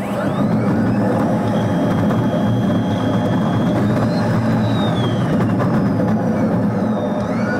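Sped-up ride inside a Yutong E12 electric bus: steady road and running noise, with a thin high whine that rises and falls as the bus speeds up and slows.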